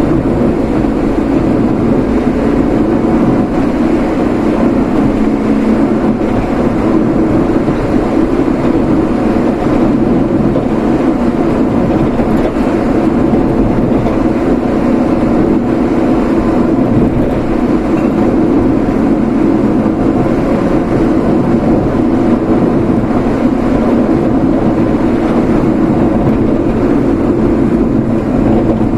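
Steady road and engine noise from a vehicle driving at an even pace, with no breaks or sudden events.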